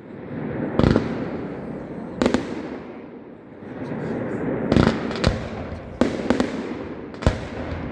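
Fireworks going off: about seven sharp bangs, some in quick pairs, over a continuous rushing noise.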